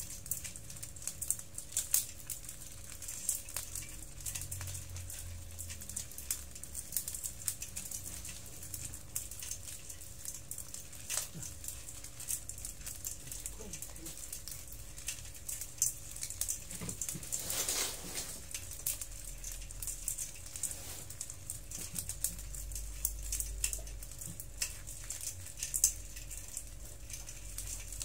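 Many small hermit crabs crawling over one another in a bowl, their shells knocking together in a dense, irregular clicking and rattling. A faint low rumble comes and goes underneath.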